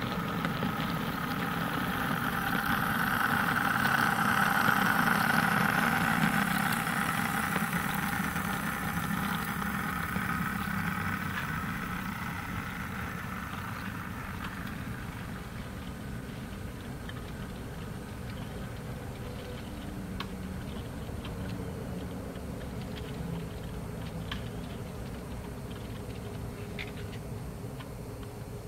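Model goods train running past on the layout's track: a steady mechanical rumble and hum of wheels and motor. It swells to its loudest about four to six seconds in as the wagons pass close, then eases off.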